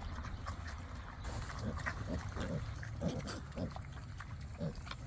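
Pigs grunting as they feed on corn and green beans: a run of short, irregular grunts from several animals over a low steady rumble.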